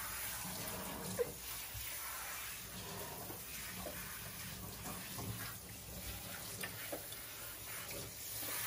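Sink faucet running water into the basin, a steady rush.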